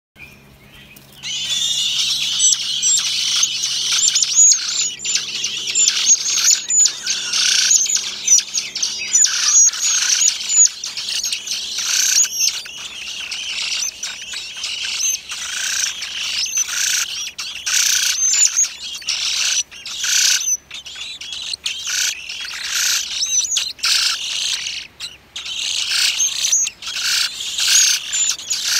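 Blackbird nestlings begging for food: a dense chorus of high, shrill chirps starting about a second in and coming in repeated bouts.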